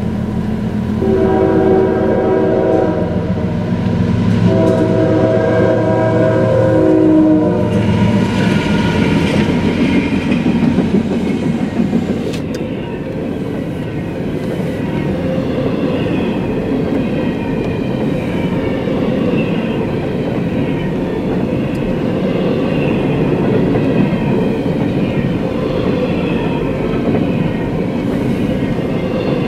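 Freight locomotive horn sounds two blasts at the grade crossing, the second longer than the first. The CSX double-stack intermodal train then passes close by with a steady rumble and clatter of wheels on the rails.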